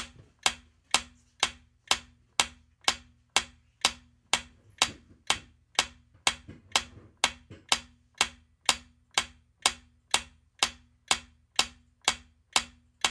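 Quiz countdown timer sound effect: a steady clock-like tick, about two a second.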